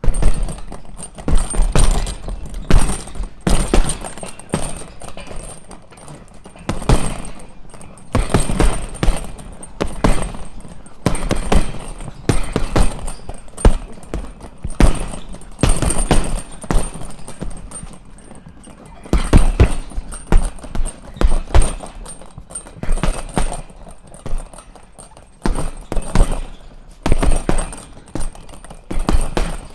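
Punches landing on a punching bag: runs of dull thuds, several blows a second, broken by short pauses.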